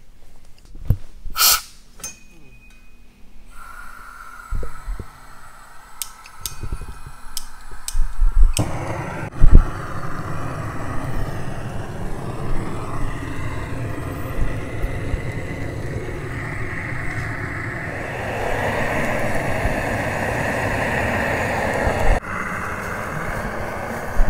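A few clicks and knocks, then two heavy thumps about eight and nine seconds in, followed by a motor vehicle running steadily, getting a little louder about two-thirds of the way through.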